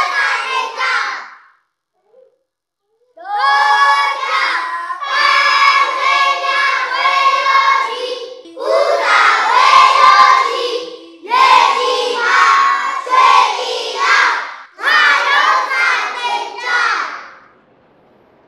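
A class of young children singing a rhyme together in unison, phrase by phrase. After a short pause near the start they carry on, then stop about a second before the end.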